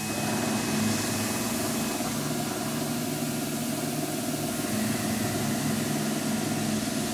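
Tormach CNC lathe running under program: a steady machine hum from the spindle with a hiss of coolant, as the spot drill works the part.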